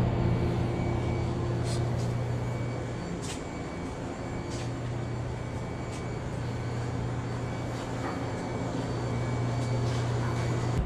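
Steady low electrical machine hum from shop equipment, with a few faint ticks over it.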